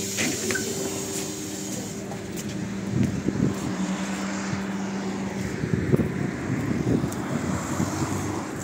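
Trolleybus standing at a stop with its doors open, its equipment giving a steady low hum that stops about five and a half seconds in. Street traffic noise and some wind on the microphone underneath.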